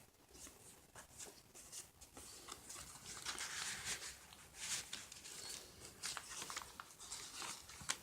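Paper pages and tucked-in tags of a handmade junk journal rustling as it is handled and flipped through: a run of soft, brief swishes and crinkles.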